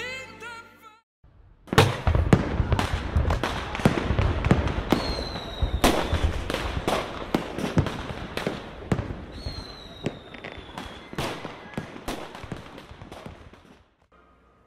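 Fireworks going off: a dense run of sharp bangs and crackling, with two whistles that fall slightly in pitch, thinning out near the end.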